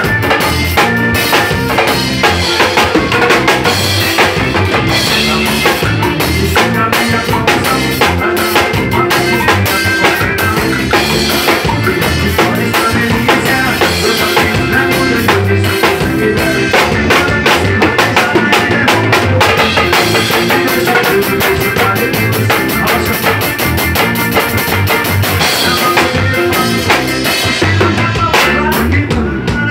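Drum kit played live in a continuous groove, with kick drum, snare and cymbals.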